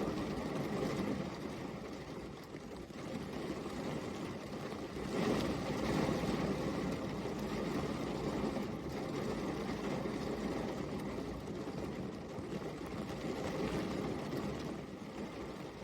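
Steady rain: a dense, even hiss weighted toward the low end, swelling slightly about five seconds in.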